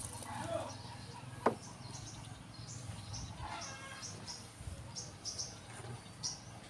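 Birds chirping: short, high chirps scattered through the second half, with one sharp click about one and a half seconds in.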